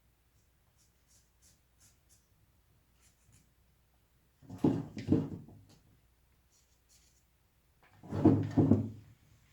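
Carving knife paring wood in short, light strokes, then two louder bouts of rough scraping, one about halfway and one near the end.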